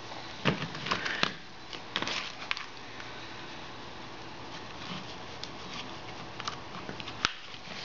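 Handling noise from a BlackBerry phone held and turned over on a tile floor: a few short light clicks and taps over a steady hiss, the sharpest near the end.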